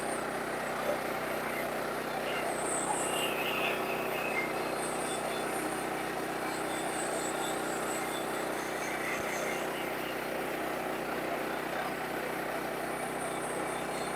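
Sawmill running steadily, its engine and saw blade cutting through a cant of wood.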